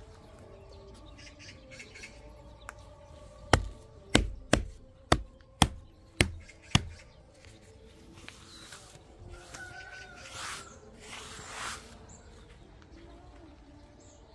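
Seven sharp knocks in quick succession, about two a second, a few seconds in. Faint birdsong runs in the background.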